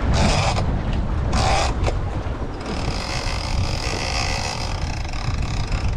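Big-game lever-drag fishing reel, a Shimano Tiagra, buzzing steadily from about two and a half seconds in as a hooked striped marlin runs and takes line against the drag. Underneath is a low rumble of wind on the microphone, and there are two short rushing noises before the buzz starts.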